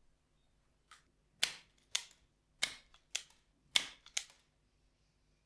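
Metal hand tools cutting and stripping thin insulated hookup wire: side cutters snipping and a self-adjusting wire stripper clamping. About seven sharp snaps come over three seconds, starting about a second in, the loudest near the start and in the last pair.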